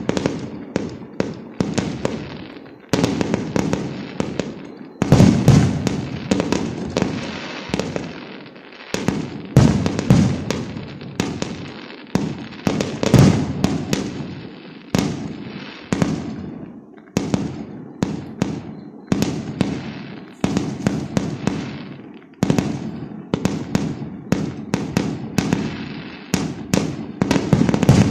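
Fireworks going off in a dense, continuous barrage: rapid sharp bangs and crackles, with a heavier boom every few seconds.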